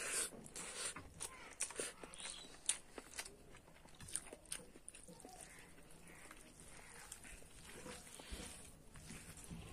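A person eating rice and curry by hand: chewing and lip-smacking with irregular soft clicks, busiest in the first half and sparser after.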